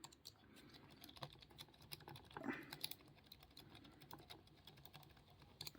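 Faint, rapid, irregular metallic clicks and scraping from a lock pick being raked and rocked in the keyway of a pin-tumbler padlock.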